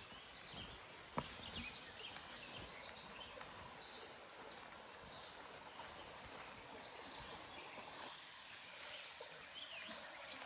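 Forest stream running as a steady low hiss, with faint bird chirps scattered through and a single sharp click about a second in.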